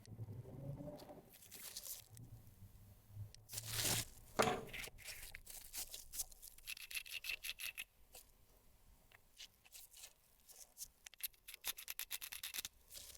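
Packaging handled close to the microphone during an unboxing: rubbing and tearing of wrapping, with a few louder swishes and a fast run of sharp crackles near the end.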